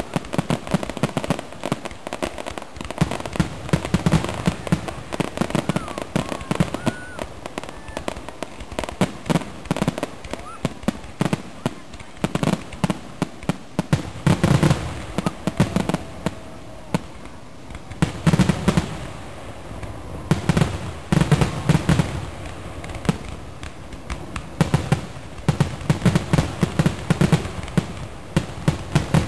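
Fireworks display: aerial shells bursting one after another with dense crackling and popping, and clusters of heavier, deeper booms partway through and near the end.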